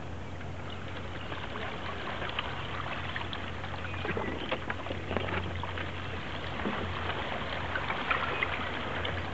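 Water trickling and lapping around the bamboo poles of a raft as it glides over the river, with many small splashes and ticks and a steady low hum underneath.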